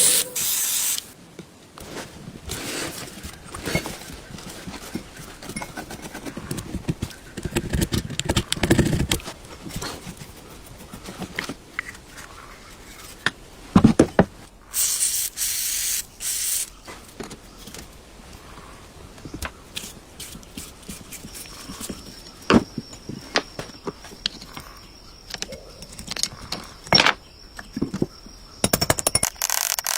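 Hands working on an antique sewing machine, with scattered clicks, knocks and scrapes of metal parts being handled. There is a short burst of hiss about fifteen seconds in, and a faint steady high whine through the second half.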